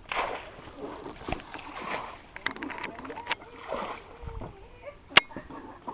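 Quiet outdoor ambience with faint voices, a quick run of light clicks about two and a half seconds in, and one sharp click near the end.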